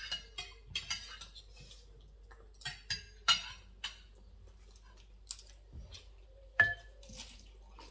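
Metal cutlery clinking and scraping against plates and a serving bowl at a dinner table: a scatter of short, irregular clinks, the sharpest a little over three seconds in and again near the end.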